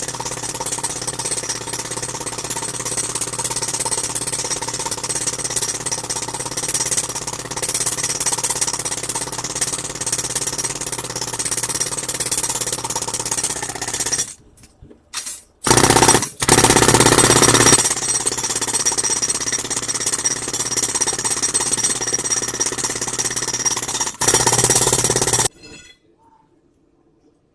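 Jackhammer-type rock drill running steadily while boring a hole into rock. It stops about halfway through, restarts in a few short bursts, runs on again and then cuts off near the end.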